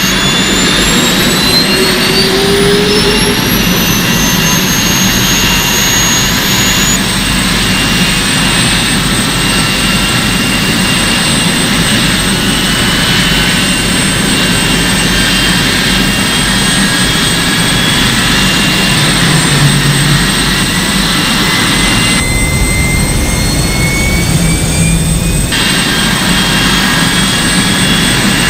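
Jet engines running with a loud steady rush, their high turbine whines climbing in pitch over the first several seconds and then holding steady, with a couple of sudden shifts in the sound.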